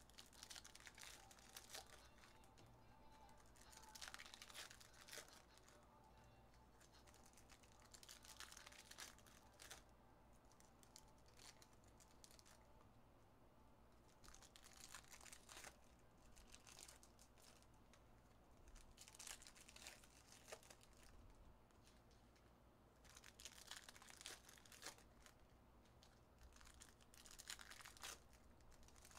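Faint crinkling and tearing of foil trading-card pack wrappers as packs are opened by hand, in short bouts every few seconds.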